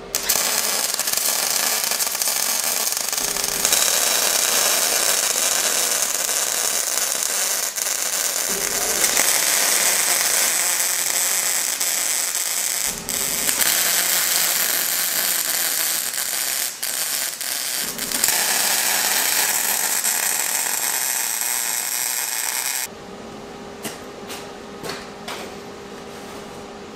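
Electric arc welding on a steel tube frame: a loud, steady hissing sizzle in several runs with short breaks between them. It stops a few seconds before the end, leaving a few light clicks and knocks as the steel is handled.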